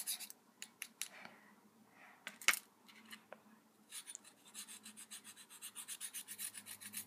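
A stick of ochre dry pastel scraped quickly back and forth on a small plate to grind it into powder: rapid rasping strokes, about six a second. It pauses in the middle with a few light clicks, the sharpest about two and a half seconds in, then the scraping starts again.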